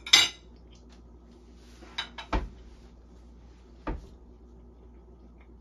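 A metal fork is set down on a ceramic plate with a sharp clink, followed by three softer knocks over the next few seconds.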